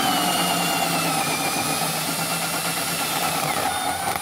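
Drill turning a hole saw through the plastic wall of a tool box: a steady motor whine over the cutting noise. It is driven gently as the saw breaks through the plastic.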